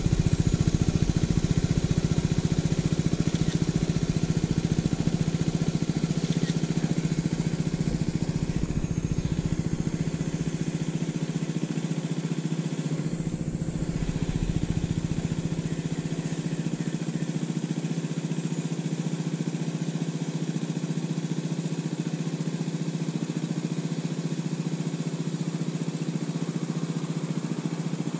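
Motor scooter engine idling steadily with the machine at a standstill.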